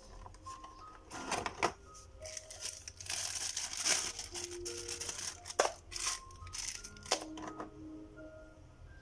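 Thin plastic packaging bag crinkling and rustling as it is handled and opened, loudest about three to five seconds in, with a few sharp crackles. Light background music of short single notes plays underneath.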